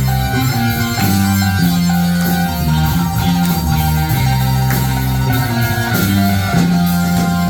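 Live rock band playing an instrumental passage: bass moving through held notes under guitar, with steady drum hits.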